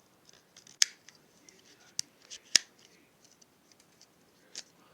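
Plastic puzzle ball fidget toy being twisted and handled, giving sharp plastic clicks with fainter ticks between: four loud clicks, about a second in, twice near the middle, and once near the end.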